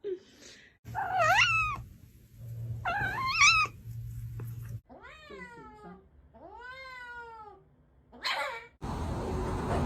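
Domestic cats meowing: four long meows, the first two rising then falling in pitch, the last two sliding downward. A short noisy burst follows near the end.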